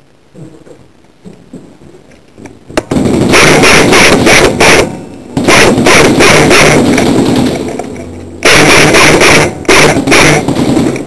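Airsoft electric gun firing three long full-auto bursts, loud and close, the first starting about three seconds in.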